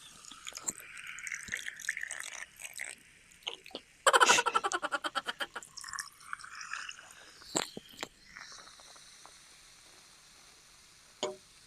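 Liquid being poured and dripping, with a few clicks. About four seconds in there is a loud burst of fast, even pulsing lasting about a second and a half.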